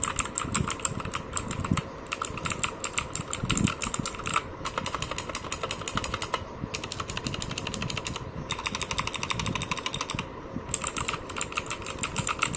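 Clicky mechanical keyboard with Jixian Blue switches being typed on rapidly: a fast run of sharp clicks, each keypress with its click over a tactile bump, broken by a few brief pauses.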